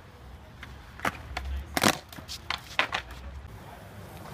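Skateboard on concrete: sharp clacks of the board against the ledge and ground, the loudest a smack about two seconds in, with the wheels rumbling as they roll in between.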